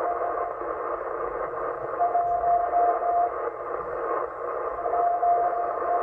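M12 number station's CW signal received on 8.118 MHz shortwave through a Yaesu FTdx10: a single steady Morse tone over band hiss, keyed on for over a second about two seconds in and again near the end. The signal flutters from aurora.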